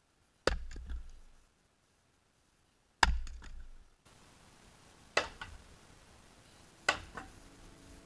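Splitting axe striking firewood rounds four times, each a sharp crack of the blade going into the wood, followed by a few smaller knocks.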